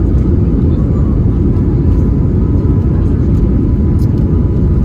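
Airbus A321neo jet airliner at takeoff: a loud, steady, deep rumble of engine and airflow noise, with a faint steady whine above it.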